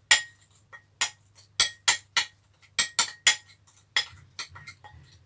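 Metal spoon clinking against a small glass bowl while stirring a sauce: about a dozen sharp clinks at an uneven pace, some with a short glassy ring.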